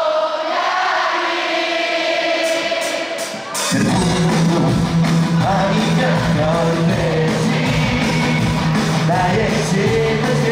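Live concert music: a stadium crowd singing along with no band under it, a few quick ticks, then about three and a half seconds in a rock band comes in loud with bass and drums while the singing goes on.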